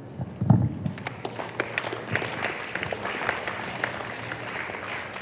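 An audience of schoolchildren clapping: a steady patter of many hands that builds up about a second in. There is a short low thump just before it.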